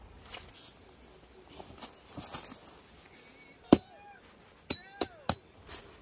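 Metal tent hardware clanking as an inner tent is fitted inside a shelter: one loud, sharp clank a little under four seconds in, then three more in quick succession, each with a brief ringing tone. A soft rustle of fabric or gravel comes about two seconds in.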